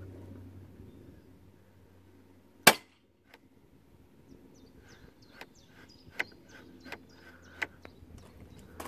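Metal clicks from a screwdriver working an Audi A6 C5's hood latch mechanism: one loud sharp snap about three seconds in, then a run of lighter clicks and taps. Birds chirp faintly in the background.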